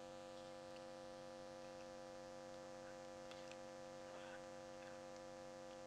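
Near silence with a steady electrical hum of several pitches, and a few faint clicks in the middle.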